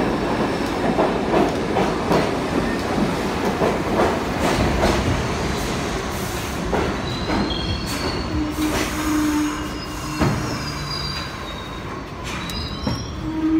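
R62A subway train pulling into the station: steel wheels clatter over rail joints for the first half, then the sound eases off as it slows, with thin high squeals as it brakes.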